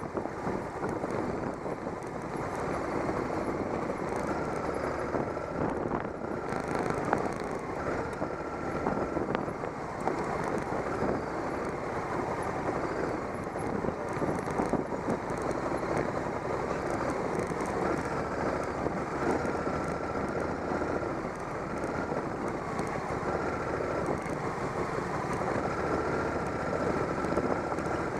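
Adventure motorcycle's engine running steadily at low trail speed on a gravel dirt track, heard up close from a camera mounted on the bike. A faint higher whine comes and goes several times.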